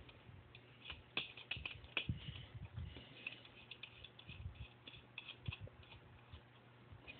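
Faint, irregular small metallic clicks and ticks as the arbor nut and washers are turned by hand on a bench grinder's shaft, snugging a sanding disc in place.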